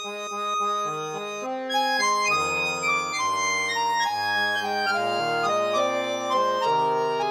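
Solo accordion playing a slow melody of held notes over sustained chords. Low bass notes come in about two seconds in.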